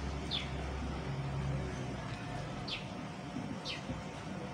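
A bird giving four short chirps, each sliding down in pitch, spaced irregularly, over a low steady hum that stops about two seconds in.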